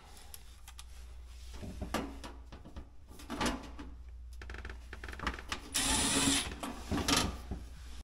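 Cordless Milwaukee driver running in short bursts as it drives screws into a refrigerator's sheet-metal back panel, the longest and loudest burst about six seconds in, with small clicks of the screws and bit between bursts.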